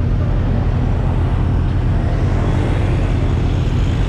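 Honda MSX 125 motorcycle under way, with heavy, steady wind rumble buffeting the microphone over the ride's road noise.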